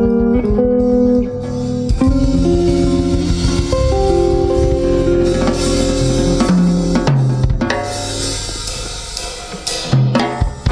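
Live jazz band playing: electric guitar chords and electric bass over a drum kit with cymbals. Near the end the playing thins out, then a few sharp drum hits come.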